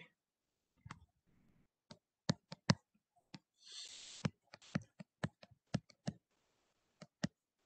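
A string of irregular sharp clicks and taps from drawing on a computer with a pen or mouse, with a brief scratchy rustle about four seconds in.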